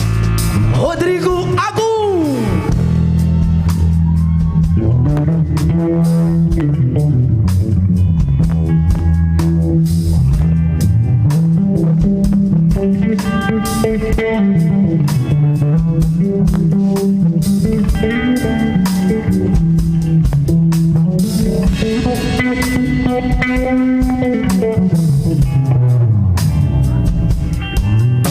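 Live rock band playing an instrumental passage: electric guitar over a moving bass guitar line and drum kit, with a guitar note bent up and down about two seconds in.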